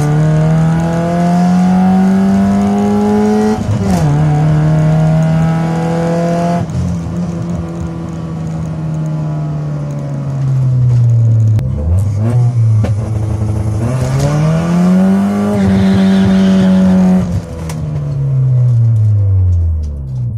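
Chevrolet Astra GSi engine heard from inside the cabin during a drag run, revving hard with one upshift about four seconds in. The throttle lifts about six and a half seconds in and the revs wind down as the car coasts at the end of the run. Later the engine revs up once more and falls away again.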